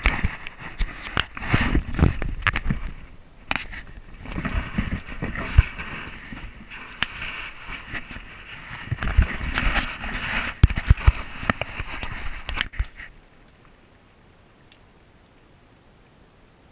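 Close rustling and crackling with many irregular sharp clicks and knocks, like brushing and crunching through dry bankside vegetation right at the microphone. It stops abruptly about thirteen seconds in, leaving only a faint steady background.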